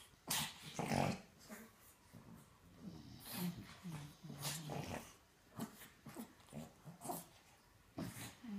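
Pug play-growling and grunting in a series of short low growls mixed with noisy, wheezy breaths while wrestling a cat, loudest about a second in.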